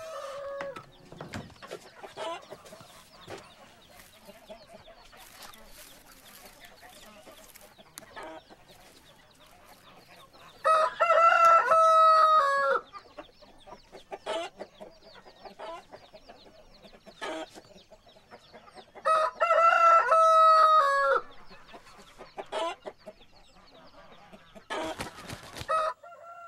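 Domestic rooster crowing twice, each crow about two seconds long, the first about eleven seconds in and the second about nineteen seconds in. Hens cluck softly in between, and a short noisy burst comes near the end.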